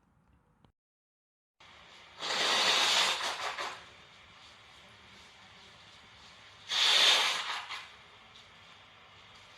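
A person with a cold blowing their nose twice. The first blow lasts about a second and a half, starting about two seconds in; the second is shorter, about seven seconds in.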